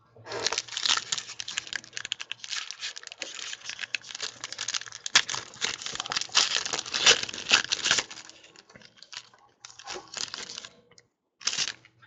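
Foil wrapper of a Panini Clear Vision football card pack torn open and crinkled by hand: a dense crackle for about eight seconds, then a few short crinkles.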